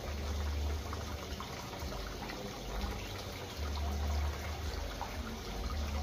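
A steady rushing, water-like noise, like running or trickling water, with a low rumble that comes and goes.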